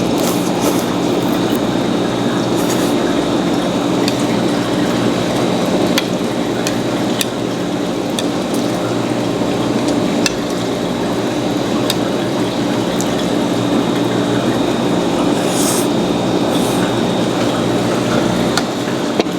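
Steady low mechanical hum with a faint high whine above it, and about ten sharp clicks and taps scattered through it, the sounds of eating seafood: shells cracking and utensils knocking.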